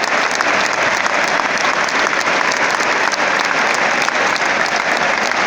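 A packed stadium crowd applauding, thousands of hands clapping at a steady level.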